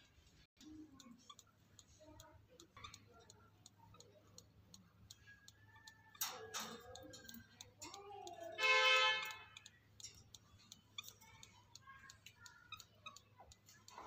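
Caged budgerigars chattering softly, with many light clicks and brief chirps throughout and one louder drawn-out call about nine seconds in.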